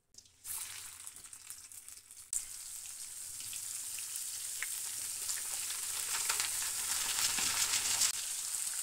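Marinated, flour-dusted chicken pieces deep-frying in hot oil in an iron kadai, a steady crackling sizzle. It starts about half a second in, jumps louder a little after two seconds in, then slowly builds.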